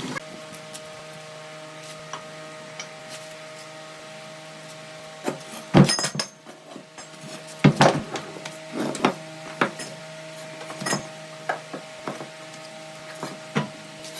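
Wood being handled on a workbench: scattered sharp knocks and taps, the two loudest about six and eight seconds in, over a steady electric machine hum.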